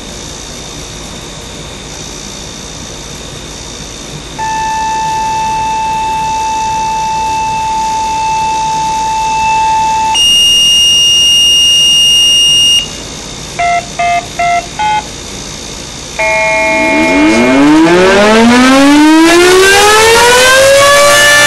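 A sequence of steady radio tones: a long low tone, a higher tone, then four short beeps, the activation tones for the siren test. Then an outdoor tornado warning siren winds up, its pitch rising steadily until it levels off near the end.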